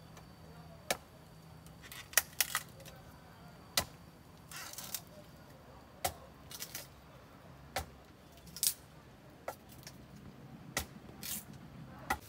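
Scattered sharp clicks and clinks of small hard objects being handled, roughly one a second with a few brief scraping bursts, over a low steady hum.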